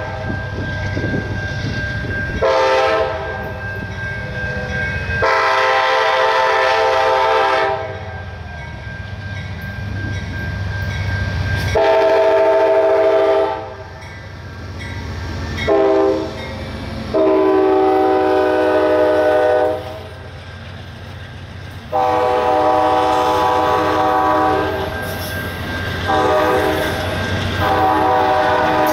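Amtrak GE P42DC diesel locomotive 164 sounding its multi-note air horn in long and short blasts: long, long, short, long, the grade-crossing signal, given twice. Under the horn run the locomotive's diesel engine and the steady rumble and clatter of the passenger cars' wheels as the train passes at speed.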